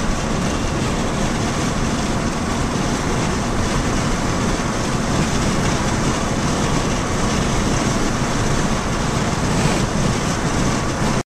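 Steady road noise inside a moving car's cabin, tyres on asphalt and engine running, cutting off suddenly near the end.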